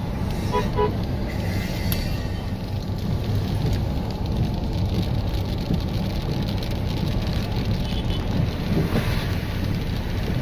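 Car driving on a wet, flooded road, heard from inside the cabin: a steady low rumble of engine and tyres with the hiss of water under the wheels.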